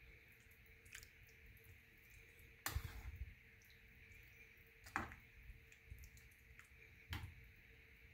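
Metal spoon stirring a bowl of thick chicken rice porridge, soft and wet, with a few light clinks against the bowl about every two seconds.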